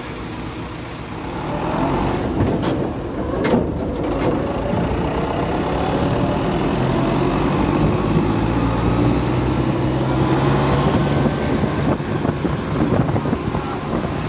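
David Brown 880 tractor's diesel engine running, getting louder about a second in and then holding steady, its pitch shifting up and down a little.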